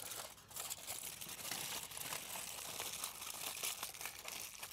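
Aluminium foil crinkling steadily as it is peeled off a cast-iron pan, with a dense crackle throughout.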